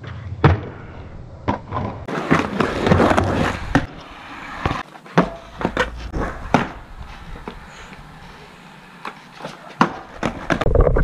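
Skateboard on concrete: wheels rolling with a gritty noise, broken by several sharp knocks as the board slaps down and the deck clacks. The knocks come in a cluster near the end.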